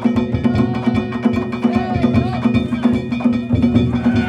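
Danjiri narimono: a taiko drum and metal gongs (kane) beaten in a fast, unbroken rhythm, with the gongs ringing over the drumbeats.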